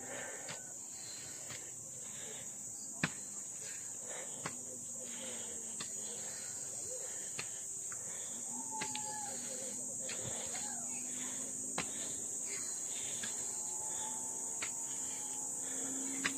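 Steady high-pitched drone of insects in the surrounding trees. Footsteps tap on the concrete steps now and then.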